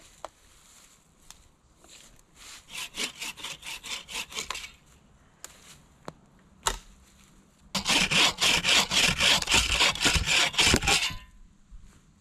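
Hand saw cutting through a dry dead branch for firewood in quick back-and-forth strokes: a short run of strokes, a single knock, then a louder, faster run of about three seconds.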